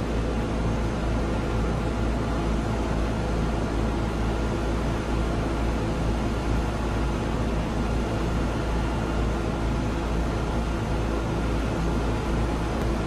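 A steady, unchanging hum with a deep low rumble and a hiss over it.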